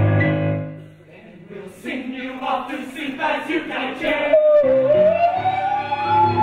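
Male show choir singing: a held chord fades out in the first second, then after a short pause the voices sing a rhythmic run of short, accented notes. About four seconds in, a solo voice dips and then slides upward into a long high note over a sustained low chord from the choir.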